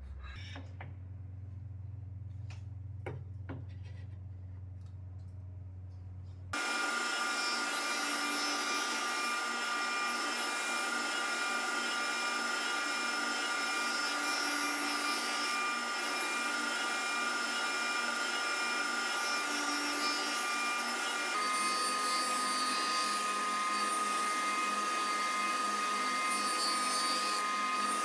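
A low hum with a few light wooden knocks, then, about six seconds in, a table saw starts abruptly into a loud steady running sound with a high whine, its blade cutting a row of notches into a softwood board. The whine shifts slightly in pitch about two-thirds of the way through.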